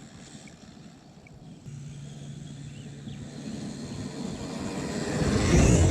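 Traxxas X-Maxx RC monster truck with its Hobbywing 1100kv brushless motor, driving and coming closer: the running noise grows steadily to its loudest just before the end, where a high motor whine rises in pitch.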